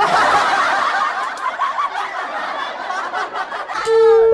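A group of people laughing together, many voices overlapping in continuous giggling. Music comes in near the end.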